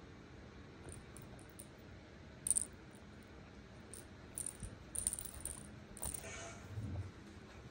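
Cat wrestling and kicking a plush fish toy on a fabric quilt: a few short, crisp crinkles and rustles, scattered and irregular, starting a couple of seconds in.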